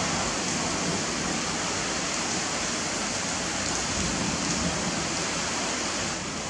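Steady rain, an even hiss without pauses, getting slightly quieter near the end.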